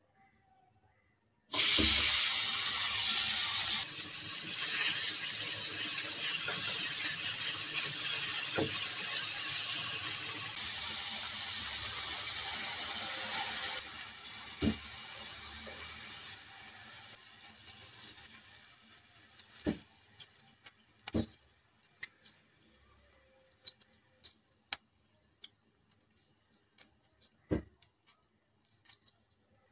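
Minced beef hitting hot oil in a stainless steel frying pan and sizzling loudly, starting suddenly about a second and a half in, then gradually dying down as the meat's surface cools the oil. A few sharp clicks and taps near the end as spices are tipped onto the meat.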